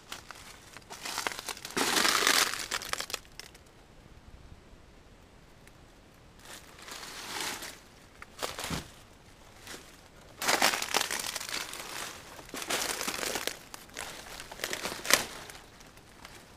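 Footsteps crunching through dry leaf litter and stiff saw palmetto fronds brushing and crackling against the body, in irregular bursts with a quiet gap early on.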